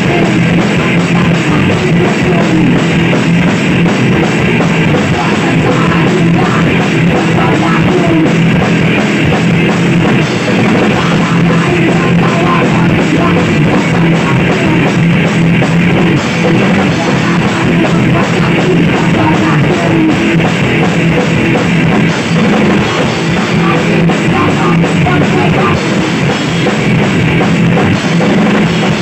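Punk band playing live in a small rehearsal room: distorted electric guitars and a drum kit in a loud, steady, unbroken song.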